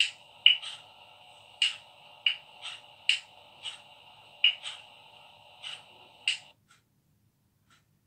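Sharp clicks from a handheld camera remote being handled, about a dozen at uneven intervals over a steady background hum. The hum cuts off suddenly a little past six seconds in.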